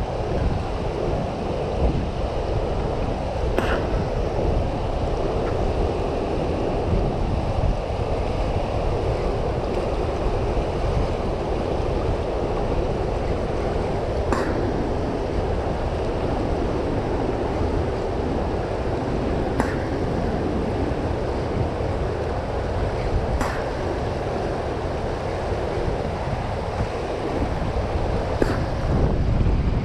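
Steady rush of churning tailwater below a hydroelectric dam, stirred up by water released through its running generators. A few brief faint clicks are scattered through it.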